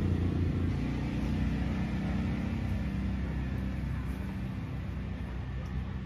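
Steady low rumble of an engine, slowly fading away.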